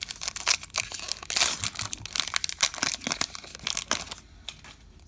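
Baseball card pack wrapper being torn open and crinkled, a dense run of crackling that dies down about four seconds in.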